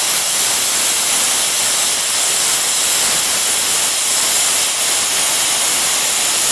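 Tenya Cut 50 plasma cutter cutting metal plate: a loud, steady hiss of the plasma arc and compressed air, with no break.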